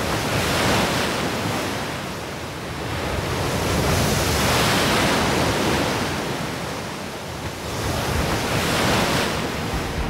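Ocean surf surging into a narrow rock channel at a blowhole and bursting up as spray, a rushing wash of water. It swells and ebbs three times, loudest around the middle.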